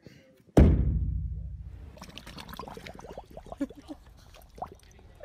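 A loud thump about half a second in that fades over a second or so. Then a dog pawing at a tennis ball in a shallow puddle: water splashing and slapping, with many quick plops and drips.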